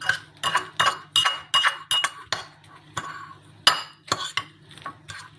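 A fork clinking and scraping against a dish of microwave-scrambled egg, in quick, irregular taps, several a second, that thin out after about three seconds. The sharpest clink comes a little after the middle.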